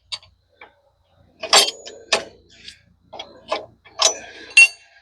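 A series of sharp metal clanks and clicks, about eight over a few seconds, the last ringing briefly: sawmill log stops and clamp hardware being set against the log.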